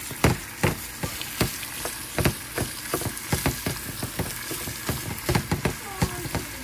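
Rice sizzling as it fries in hot oil in a pan: a steady hiss broken by frequent, irregular sharp clicks.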